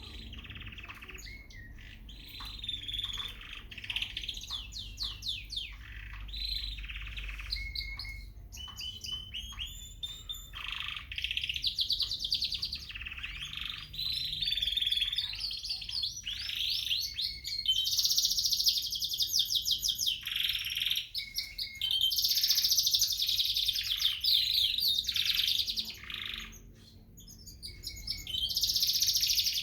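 Domestic canaries, a gray frill back and a yellow, singing: long runs of rapid trills, rolls and chirps with little pause. The song gets fuller and louder in the second half and dips briefly about 27 seconds in.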